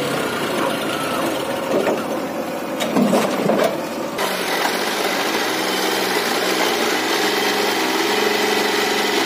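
Diesel engines of a farm tractor and a backhoe loader running steadily, their pitch wavering slightly as the tractor pulls a soil-laden trolley through mud. A few knocks come in the first half, and the sound changes abruptly about four seconds in.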